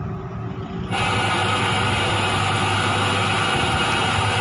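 CRT TV's speaker putting out a loud hiss of static instead of proper sound. It switches on sharply about a second in and stops abruptly near the end, over a steady low hum. It is the TV's no-sound fault on cable/antenna input, still present after the EEPROM IC was replaced.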